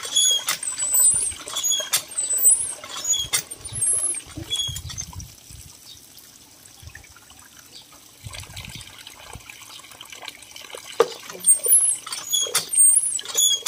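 Water from a cast-iron hand pump splashing into a cooking pot as the handle is worked and rice is rinsed under it, with sharp metal knocks from the pump and the pot lid. The water dies down for a few seconds around the middle, then picks up again. High chirps sound now and then.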